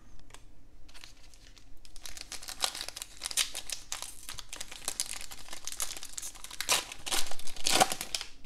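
Foil-lined Donruss trading-card pack wrapper being torn open by hand and crinkled: a few light rustles, then about two seconds in a dense crackling that is loudest near the end as the wrapper is pulled apart.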